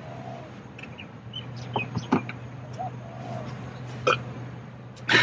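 A steady low hum with a few short sharp clicks and knocks, and a faint short bird chirp repeated twice.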